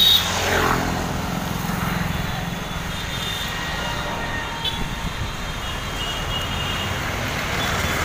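Street traffic heard from a moving rickshaw: a steady low rumble of the ride, with a passing vehicle whose pitch drops in the first second and faint horn toots a few seconds in.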